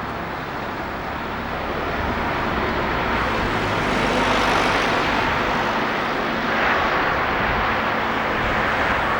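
Diesel train engine running with a steady rushing noise and a low hum, growing louder over the first four seconds or so and then staying loud.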